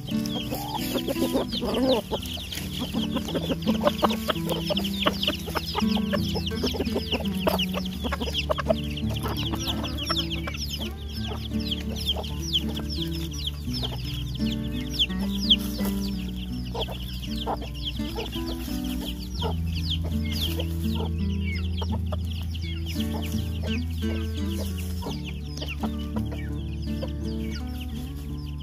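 A flock of chickens clucking, with many short high calls throughout, over background music with low sustained notes.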